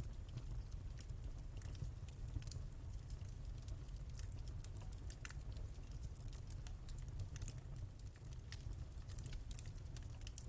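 Wood fire crackling in a fireplace: frequent small, sharp pops and snaps at irregular intervals over a steady low rumble.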